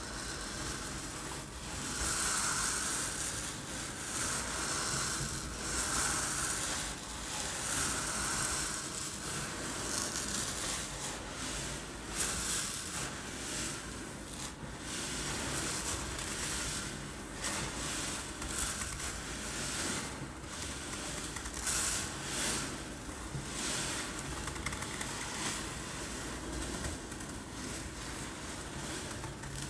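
Uncooked rice grains rattling and sliding in a container, a rushing hiss that rises and falls in swells like waves breaking on a beach. The swells come about every one to two seconds at first, then turn choppier.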